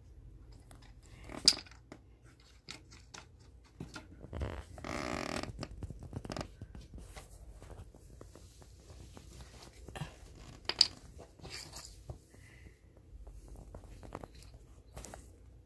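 Scattered light clicks, taps and rustles of a cat poking about on a wooden floor and rug, with two sharper clicks and a longer rustle partway through.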